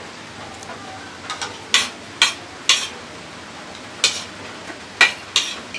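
Spoons clinking and scraping against plates of rice while eating: about eight sharp, light clinks at uneven intervals, most of them in the second half.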